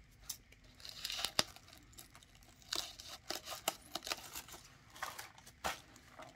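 Scissors snipping into white honeycomb paper wrap, with the paper crinkling as the package is handled: a few irregular sharp snips and rustles.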